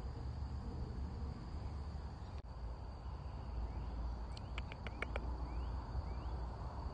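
Outdoor ambience of crickets or other insects keeping up a steady high drone over a low rumble. A little past four seconds in comes a quick run of about six sharp chirping notes, followed by a few short rising chirps.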